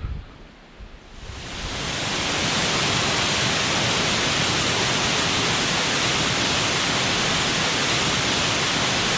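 Waterfall rushing: a steady, even roar of falling water that fades in over the first couple of seconds and then holds constant.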